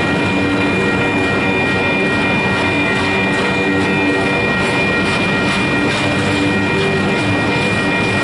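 Empty welded-rail train flatcars rolling past close by: a steady loud rush and clatter of wheels on rail, with a thin high whine held throughout.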